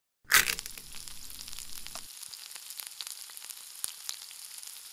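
Food sizzling and crackling as it fries in a hot pan. It starts abruptly with a loud burst, then goes on as a steady hiss dotted with small pops, and a low rumble under it drops out about two seconds in.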